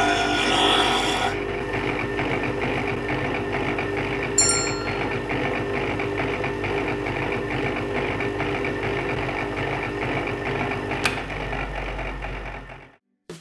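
Bench grinder motor running with a steady hum, with a steel chisel in a wooden jig ground against the stone wheel for about the first second, a harsh rasping. Two sharp metallic clicks come later. The sound fades out near the end.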